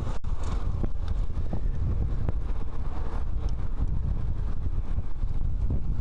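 Wind buffeting the microphone of a camera on a moving bicycle: a steady low rumble with scattered faint clicks and rattles.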